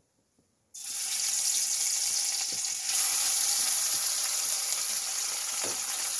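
Hot oil in a kadai sizzling loudly as food goes in. It starts suddenly about a second in and grows louder about three seconds in.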